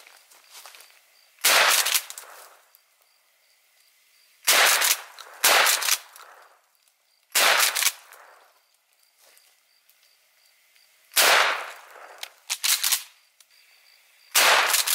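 A 12 gauge pump-action shotgun fired repeatedly with birdshot: a series of loud, sharp shots roughly every one to four seconds, each trailing off into a short echo.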